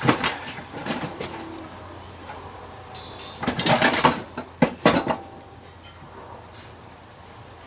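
Metal tools or parts being handled, giving scattered clanks and clinks: a few in the first second, then a quick cluster about three and a half to five seconds in.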